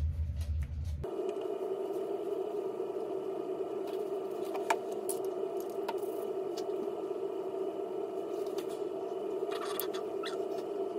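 A steady hum of several held tones starts suddenly about a second in and holds, with a few faint clicks and ticks over it.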